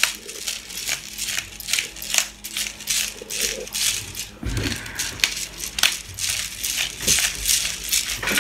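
Hand-held spice grinder being twisted over raw chicken pieces, cracking salt and pepper in a run of short crunchy grinds, about two or three a second. A duller thump about halfway through.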